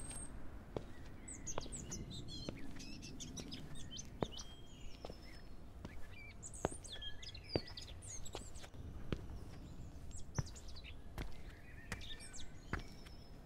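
Several songbirds chirping and trilling, with steady footsteps, about one a second, beneath them.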